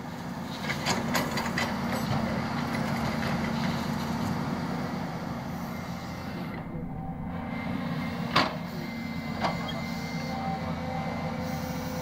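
Volvo crawler excavator's diesel engine running steadily under load as the machine swings and digs. A few sharp metallic knocks sound over it: several about a second in, a loud one about two-thirds of the way through and a smaller one a second later.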